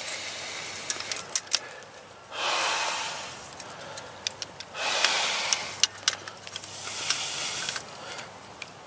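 Three long, hissing breaths, taken hard while working a barbed-wire strainer, with scattered light clicks from the tool and wire in between.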